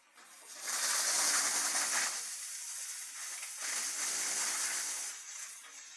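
Drum wood chipper chipping wood: two loud surges of dense crackling noise, from about a second in until about five seconds, with a dip between them and a faint steady motor hum underneath.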